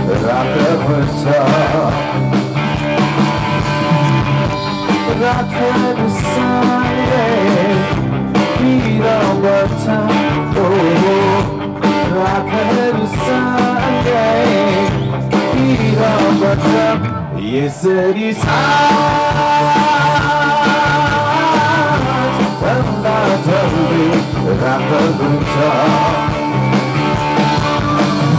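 Rock band playing live: electric guitar, bass guitar and drum kit, with singing. The music breaks off briefly a little past halfway and then carries on with a different passage.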